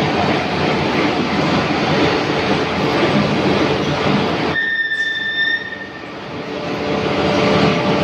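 Loud, steady foundry din while molten iron is tapped from an induction furnace into a ladle: a dense rushing noise with a low hum under it. Just past halfway the noise drops away suddenly for about a second, a short high beep sounds, and then the din builds back up.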